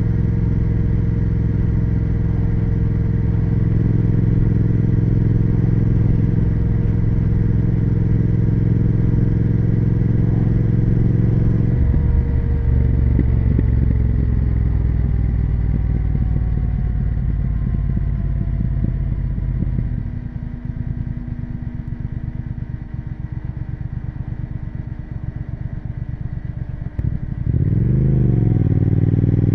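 Triumph Speed Twin 1200 parallel-twin engine and exhaust under a steady throttle. About twelve seconds in it comes off the throttle and the pitch falls for several seconds as the bike slows. It then runs low and quieter with a dense pulsing. Near the end the throttle opens again and the pitch rises quickly back to a steady run.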